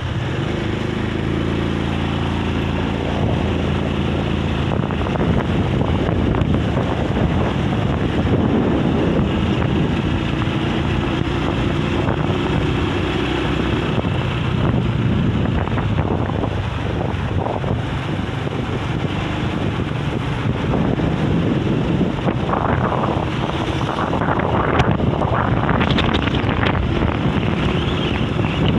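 Strong wind buffeting the microphone in a constant, loud rumbling roar, gusting harder in places, with a steady low hum in the first half.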